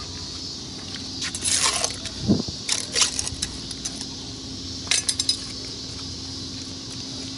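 Knife clicking and scraping against a concrete pier surface while a stingray's fins are cut off, in a few short clusters of sharp clinks, the last a quick run of four. A steady low hum runs underneath.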